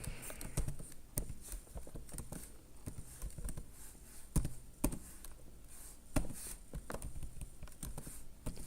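Scattered light clicks and taps at irregular intervals from typing at a computer keyboard, with a few sharper clicks among them.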